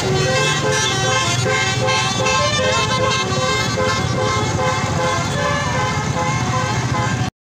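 Multi-tone telolet bus horn on the MSM Maudi bus playing a quick tune of stepping notes over a low rumble. The sound cuts off suddenly near the end.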